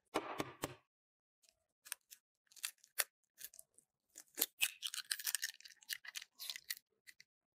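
Hen's egg being cracked and its shell pulled apart by hand over a glass bowl: a sharp tap about three seconds in, then a run of fine shell crackles as the halves open and the yolk is separated from the white.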